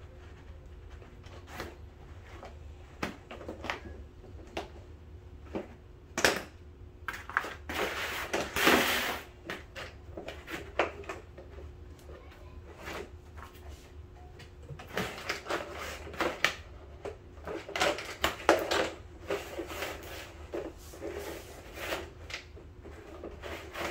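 Handling noise from a black rubber strip being cut, bent and fitted around the base of a floor-cleaning machine: scattered clicks and knocks, with longer rubbing and scraping about a third of the way in and again after the middle.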